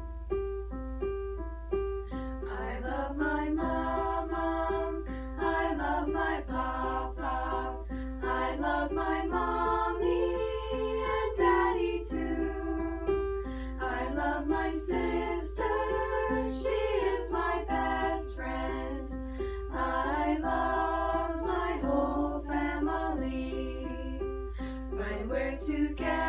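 Six girls singing a song together, accompanied by an electric piano. The piano plays repeated chords alone at first, and the voices come in about two seconds in.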